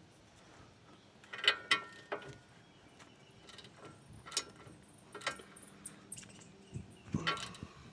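Scattered metallic clicks and clinks of hand tools on the nut of a new outer tie rod end as it is run down the stud, in a few short clusters with single sharp clinks between.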